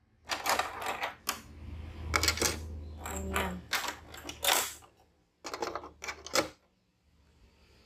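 Hard plastic clicks, taps and knocks from handling the Cricut Maker's casing and storage compartment as items are set in place, in irregular clusters over the first six seconds or so.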